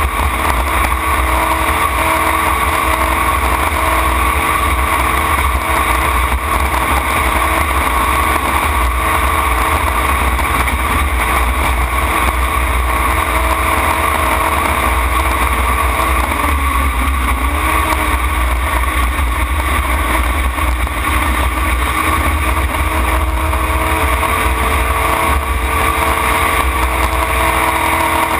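Racing tunnel-hull jet boat's engine running hard at racing speed, heard from the cockpit as a steady loud drone with a strong low rumble. Its note dips briefly and recovers about halfway through.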